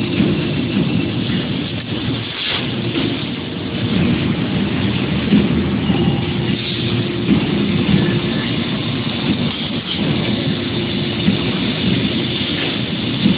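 Steady low machinery rumble with an even hiss over it from a robot-arm fiber laser cutting cell at work, the laser head slowly cutting a pressed steel car door panel.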